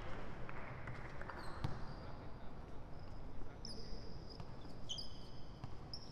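Basketball game on an indoor court: the ball bouncing on the floor now and then, and a few short high-pitched sneaker squeaks in the second half, over the hall's background noise.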